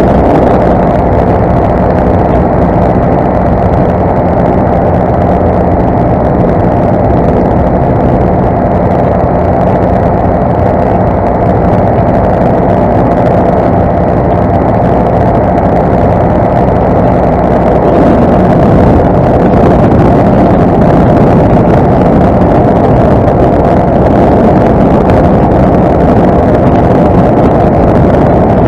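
Paramotor's two-stroke engine and propeller running steadily at cruise in flight, a loud continuous drone that grows slightly louder about two-thirds of the way through.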